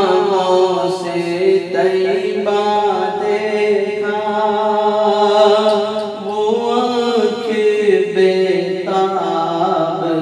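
A man's voice chanting a naat, an Urdu devotional poem to the Prophet, in long, drawn-out held notes that waver and bend in pitch, with no beat.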